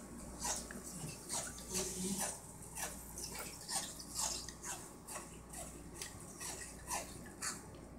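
Dog chewing on a toy: a steady run of short chews, about two a second.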